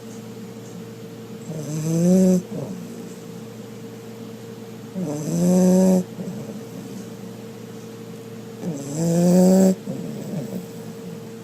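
Pit bull snoring loudly: three snores about three and a half seconds apart, each about a second long and rising in pitch.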